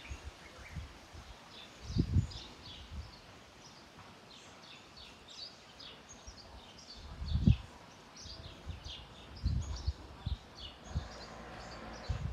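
Small birds chirping with many short, high, quick notes in an irregular scatter. A few low thuds on the microphone, about 2 s in, near the middle and again a couple of seconds later, are the loudest sounds.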